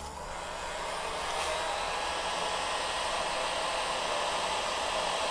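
Heat gun blowing hot air steadily onto heat-shrink tubing, its whoosh growing louder over the first second or so as it comes up to speed.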